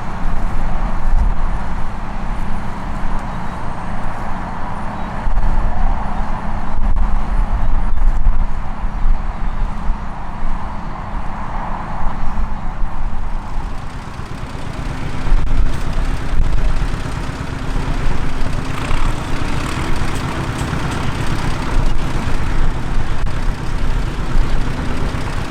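Tractor engine running steadily, with a second, slightly higher engine note joining past the middle.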